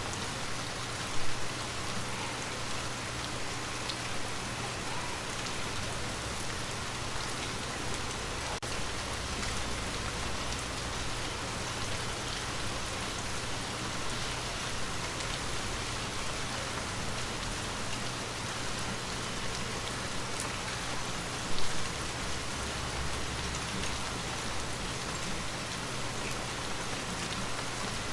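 Steady rain falling on a window, an even hiss of many drops. Two brief louder thumps stand out, about a second in and again about two-thirds of the way through.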